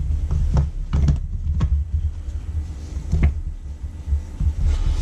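A few short plastic clicks and knocks as a stick blender's motor unit is fitted onto the lid of its chopper bowl, over a steady low rumble; the blender is not yet running.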